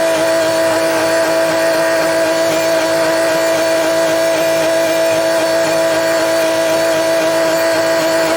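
Tractor engine running at a steady speed: a constant hum that holds one pitch, with no knocks or changes.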